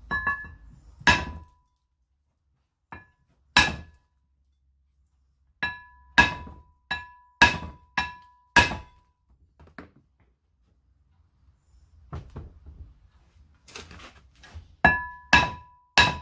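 Copper hammer tapping the edge of a Land Rover Defender brake disc to drive it evenly off the hub. Each blow is a sharp knock with the disc ringing briefly after it. The blows come in irregular groups, with a lull partway through and a quicker run of strikes near the end.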